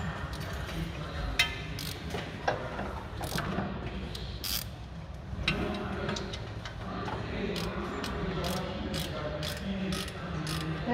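Scattered sharp, ratchet-like clicks of hand work on the front axle assembly under a car, over a steady low hum.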